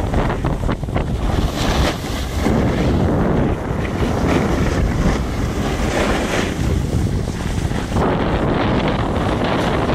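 Wind buffeting the microphone of a camera moving fast down a ski slope, a loud, steady low rushing. Over it, the hiss and scrape of edges sliding on packed snow rises and falls every second or two.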